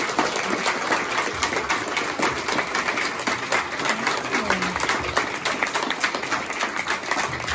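Applause from a room full of people clapping steadily together.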